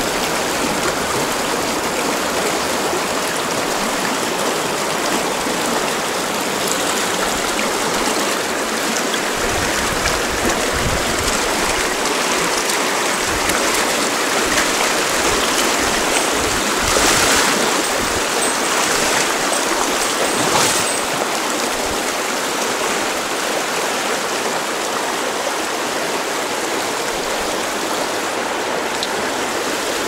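A small mountain creek rushing over rocks and riffles below a corrugated metal culvert, a steady full rush of water that swells briefly louder twice a little past halfway.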